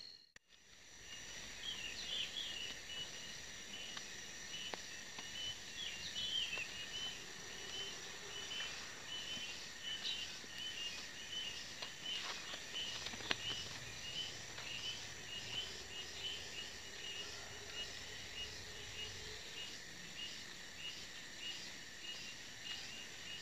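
Outdoor field ambience of insects calling, a steady high-pitched buzz with a repeating chirp over it, and scattered bird chirps, with a few faint taps.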